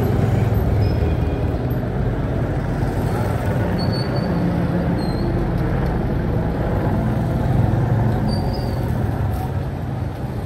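Busy street traffic noise: vehicle engines running in a steady low rumble, with a few faint short high tones over it.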